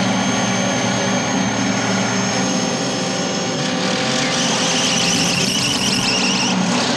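Vehicle engine running at a steady pitch. About four seconds in, a high, pulsing squeal comes in over it and cuts off suddenly near the end.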